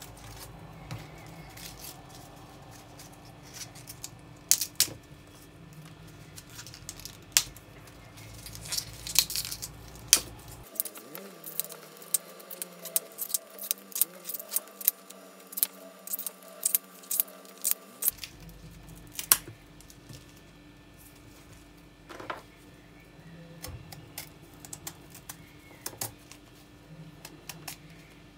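Tough outer leaves being snapped off a fresh artichoke by hand, a run of sharp, crisp snaps and clicks, at times several a second, with leaves dropping onto a wooden cutting board. Near the end a small paring knife cuts and trims at the artichoke's base.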